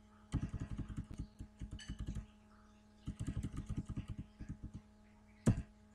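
Typing on a computer keyboard: two runs of quick keystrokes, then one louder click near the end.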